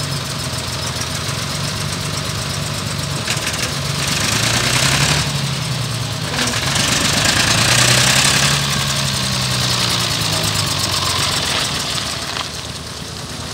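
David Brown 1690 tractor's four-cylinder diesel engine running as the tractor drives slowly, the engine note rising and falling twice as the throttle changes. A rushing hiss comes over it during the two louder stretches mid-way.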